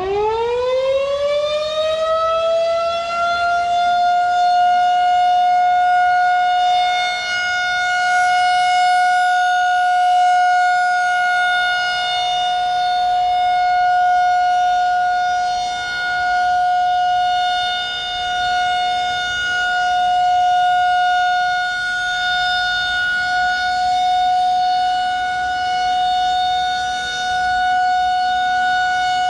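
Federal Signal 2001-130 electromechanical warning siren winding up, its pitch rising over the first few seconds, then holding one steady tone that swells and fades gently in loudness: the steady Alert signal of a siren test.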